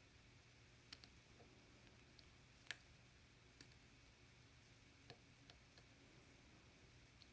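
Faint, scattered clicks of a lock pick working the pins inside a Lockwood MT5+ lock cylinder, about seven in all, irregularly spaced, the loudest about two and a half seconds in.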